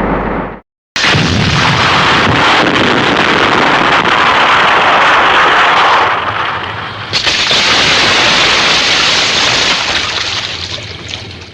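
Two explosion sound effects from 1970s tokusatsu: the first starts sharply about a second in and dies away over several seconds, and the second cuts in abruptly about seven seconds in, then fades out.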